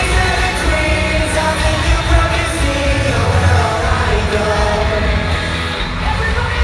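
Pop-punk band playing live with a sung lead vocal over heavy drums and bass guitar. It is loud and heard from within the audience.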